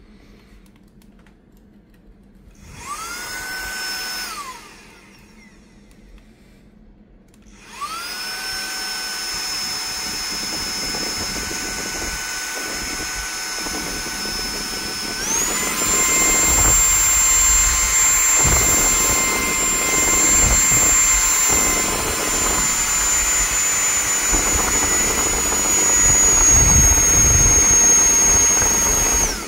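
Handheld electric air duster (turbine blower) blowing dust out of a document scanner's paper path and sensor area: a short blast, then a steady high whine that spins up, steps up to a higher, louder pitch about halfway through, with a gusty rumble from the air stream, and cuts off near the end.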